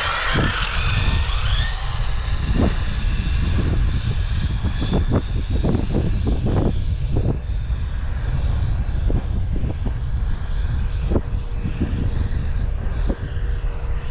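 RC buggy's brushless electric motor whining up in pitch as the car launches and speeds away, the whine fading with distance. Heavy wind rumble on the microphone runs under it throughout.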